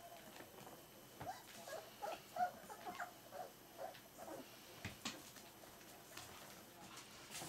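Four-week-old Berger des Pyrénées puppies whimpering in a quick run of short, high squeaks during the first half, followed by a couple of sharp clicks.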